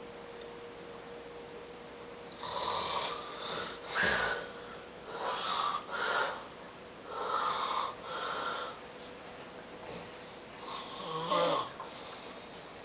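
A person snoring: about seven noisy breaths, mostly in close pairs, starting a couple of seconds in and stopping about a second before the end.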